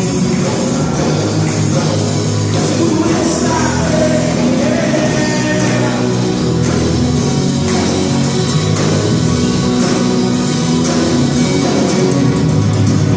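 Christian worship band playing with singing, a full band sound of bass, guitar and drums.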